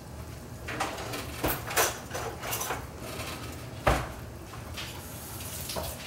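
Scattered clicks and knocks of kitchenware, the loudest about four seconds in. Under them, curry powder sizzles faintly in hot vegetable oil in a pot, with a low steady hum.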